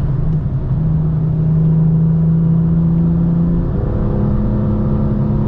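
BMW M2's turbocharged straight-six running under part throttle on track, heard onboard with road rumble. It holds steady revs, then its pitch steps up abruptly about two-thirds of the way through, as on a downshift.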